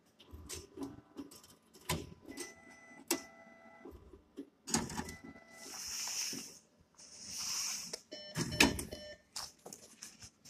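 NCR cash machine's banknote deposit module counting and checking inserted notes: short motor whines and a run of clicks and clacks from the note-handling mechanism, with two longer hissing rushes around the middle.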